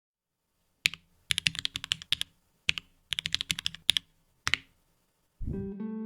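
Typing on an IQUNIX L80 mechanical keyboard with Cherry MX Red switches: a single keystroke, then several quick bursts of key clacks with short pauses, stopping about four and a half seconds in. Music starts near the end.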